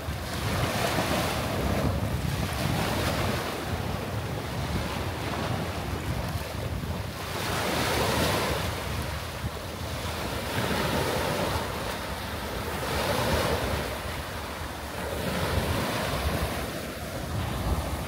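Small waves breaking and washing up over a sandy beach, the surf swelling and easing every few seconds, with wind buffeting the microphone.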